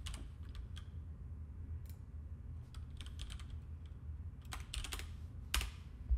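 Computer keyboard being typed on: a handful of irregular key clicks, a few in quick runs, with one louder key strike late on, over a low steady hum.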